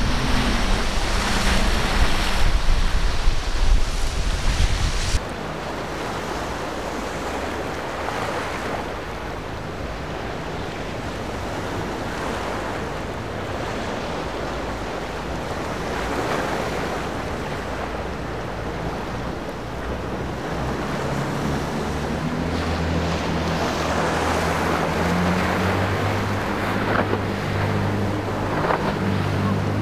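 Boats running through an inlet, with water wash and wind on the microphone. For about the first five seconds a center-console boat's twin outboard motors run loud at speed, then cut off abruptly. After that there is only wave wash and wind until, about 22 seconds in, the steady drone of a large RIB's twin MAN 800 hp diesel engines comes in and grows louder toward the end.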